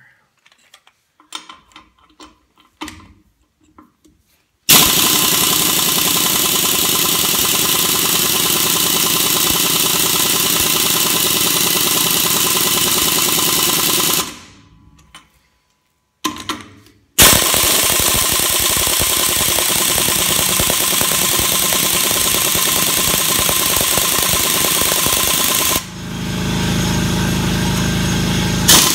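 Air impact wrench, its motor modified for more torque, hammering on a truck wheel's lug nut in two long runs of about ten and eight seconds, after a few light clicks as the socket is fitted. The nut does not break loose. The sound changes for the last few seconds.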